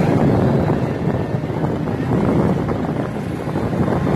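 Engine and traffic noise from a vehicle moving along a busy street, steady throughout, with wind buffeting the microphone.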